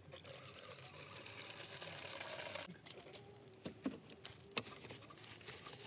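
Liquid poured through a plastic funnel into a plastic petrol can, a steady pour that stops abruptly about two and a half seconds in, followed by a few light knocks.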